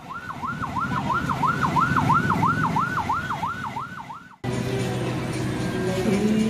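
A siren wailing quickly up and down, about two and a half sweeps a second, then cutting off abruptly about four seconds in. Music with steady held tones takes over.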